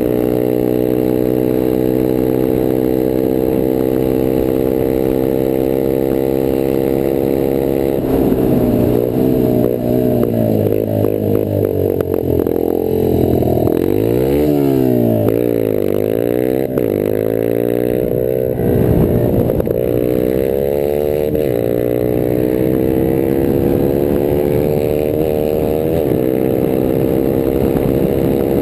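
Rieju Marathon 125 AC's single-cylinder four-stroke engine running through an open, unbaffled exhaust while being ridden. It holds a steady cruising note at first. From about eight seconds in the revs drop and rise sharply several times as the bike slows for a bend, then climb in steps through gear changes and settle back to a steady cruise.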